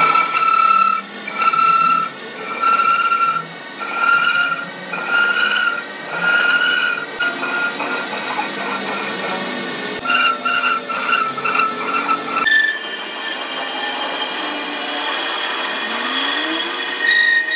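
Metal lathe cutting a steel shaft with a carbide tool, the cut giving a high-pitched squeal that comes and goes about once a second. About two-thirds of the way through, the sound changes abruptly to a steadier machining noise.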